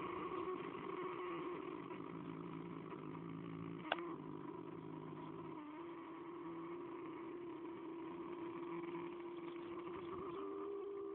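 Horse snoring: a long, steady droning tone that dips in pitch a little past the middle and steps up near the end, with one sharp click about four seconds in.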